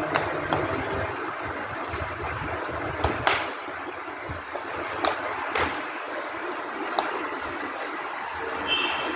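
Steady rushing of a room air cooler running, its fan and water giving an even whoosh, with now and then a sharp slap of flip-flops on a marble floor.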